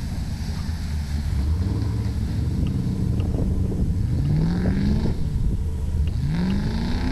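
Land Rover 4x4 engine running under off-road driving, with a steady low drone, then revving up twice with a rising pitch, about four and six seconds in.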